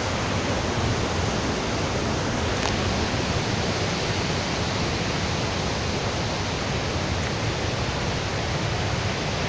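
Steady, unbroken rush of falling water from a nearby waterfall.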